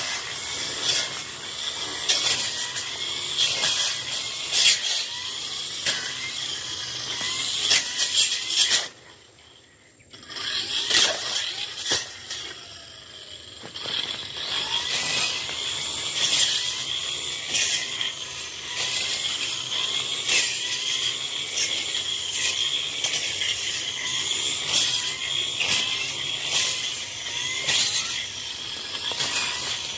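Tanzu brush cutter running at working speed and cutting through brush, with a steady high whine and constant ticking and snapping as the cutting head strikes stems and twigs. About a third of the way in it goes nearly quiet for about a second, then picks back up.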